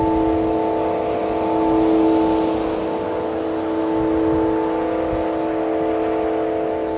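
Amethyst crystal singing bowl ringing with a sustained, multi-leveled harmonic tone: several steady pitches at once, the higher ones pulsing slowly as the bowl is moved. A steady rush of wind noise lies underneath.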